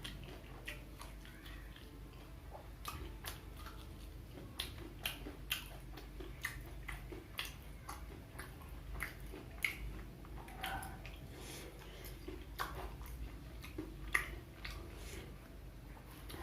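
Close-up chewing of Indonesian fried snacks (gorengan), with irregular sharp crunching clicks.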